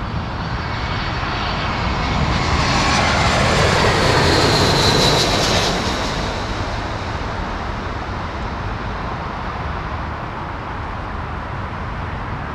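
Jet airliner on final approach passing low. Its engine noise swells to its loudest about four to five seconds in, with a whine that falls in pitch as it goes by, then fades into a steady low rumble of traffic.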